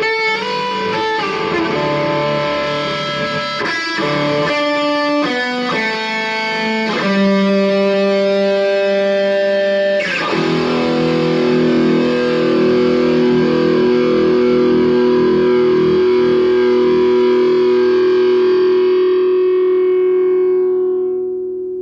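Distorted electric guitar through a Mesa Boogie Mark V 35-watt 1x12 combo amp: a few quick single notes, then two long held notes. The second rings on for about ten seconds with smooth sustain and feedback before fading out near the end.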